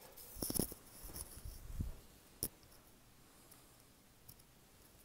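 A few brief knocks and rustles in the first two seconds, then one sharp click, all faint against the quiet of an empty room.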